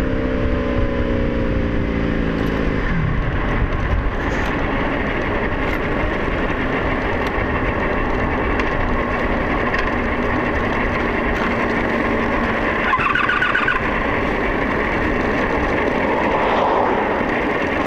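Honda Magna 700 V4 motorcycle under way, its engine note falling over the first few seconds under heavy wind rush on the helmet microphone. The engine is losing power, starved of fuel by a failing fuel pump.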